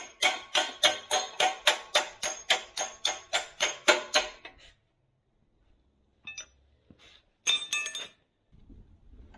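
Hammer blows on a steel backhoe bucket pin, about four ringing metal-on-metal strikes a second, driving the pin out. They stop after about four and a half seconds. After a pause come a couple of light clicks and a short cluster of clanks near the end.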